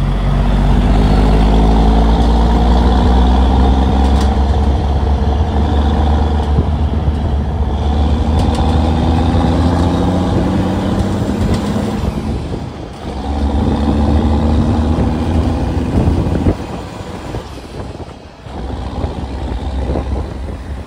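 Caterpillar 3406B straight-six turbo diesel of a Foden lorry pulling hard under load uphill, heard from outside the cab window beside the exhaust stack. The engine note climbs slowly, dips briefly about twelve seconds in, pulls again, then drops away suddenly about sixteen seconds in as the load comes off.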